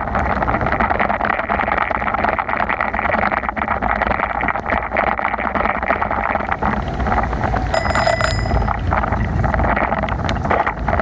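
Steady rush of wind on the microphone and bicycle tyres on a rain-soaked road while riding, with a bicycle bell ringing once, for about a second, roughly three quarters of the way through.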